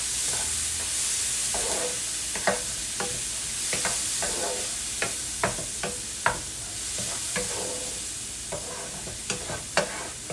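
Chopped onions frying in butter in a pan, with a steady sizzle, while a utensil stirs them, scraping and tapping against the pan every second or so.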